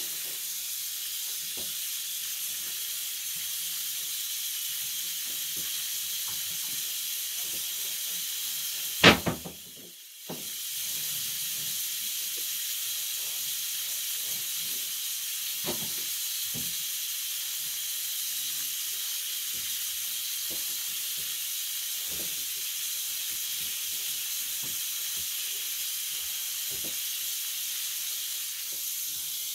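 A steady high-pitched hiss with scattered faint clicks. About nine seconds in there is one sharp knock, and the hiss drops out for about a second before it resumes.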